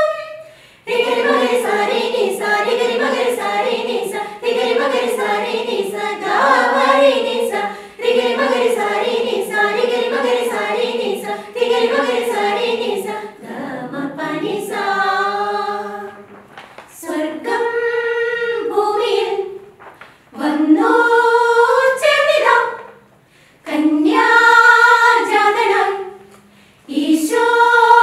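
A women's group choir singing a Christmas carol together. The first half runs as continuous singing; from about halfway the song moves in short phrases with brief pauses between them.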